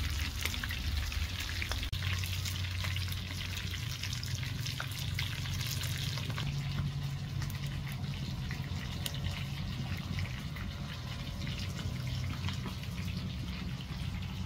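Hot oil sizzling with many fine crackles as dough balls deep-fry in a wide pan over a wood fire, over a steady low rumble.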